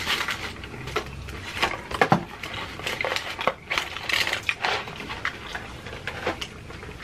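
Close-miked chewing of a Colombian hot dog topped with potato chips: irregular crunches and wet mouth clicks.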